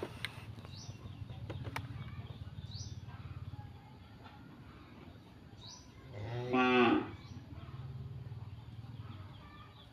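A cow moos once, about a second long, over short high bird chirps repeating every couple of seconds and a low steady hum.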